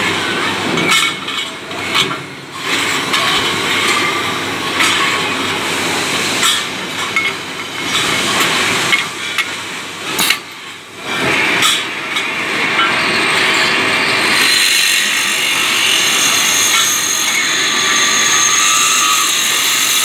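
Irregular metallic knocks and clinks as aluminium ceiling-fan housings are handled and seated in a multi-spindle drilling and tapping machine's fixture. About two-thirds of the way through, a steady machine hum with a high whine sets in.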